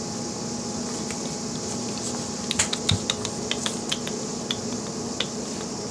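A quick, irregular string of about a dozen light clicks and taps, starting about two and a half seconds in, over a steady background hum.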